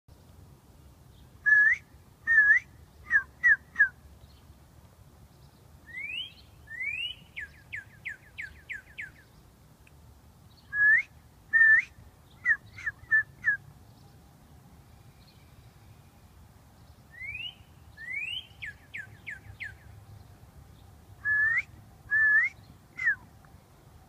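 A person whistling short phrases of slurred notes and a songbird in the trees answering with quieter phrases of upward sweeps and a quick run of falling notes, the two taking turns. The close whistling is the loudest sound.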